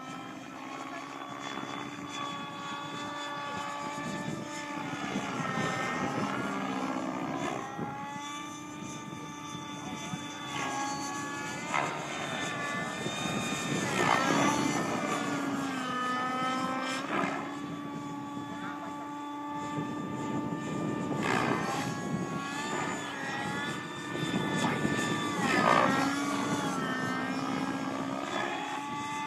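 Synergy N5 RC helicopter's YS 56 nitro engine, with a Hatori tuned pipe, running steadily in flight along with its rotor. The engine note dips and rises again several times, with louder swells as the helicopter manoeuvres.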